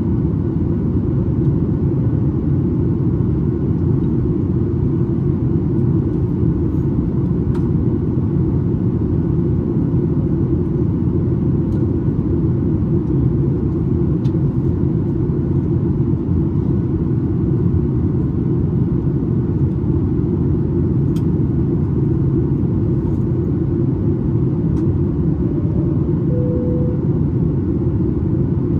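Steady, even cabin rumble inside a Boeing 737 MAX 8 in flight: its CFM LEAP-1B engines and the airflow heard from a window seat. A short faint tone sounds near the end.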